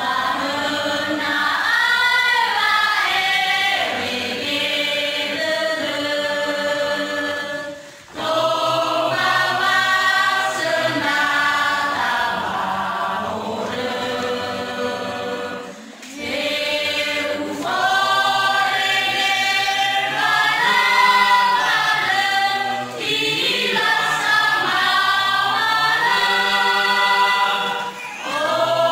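Mixed choir of women's and men's voices singing a hymn unaccompanied, in phrases about eight seconds long with short breaks for breath between them.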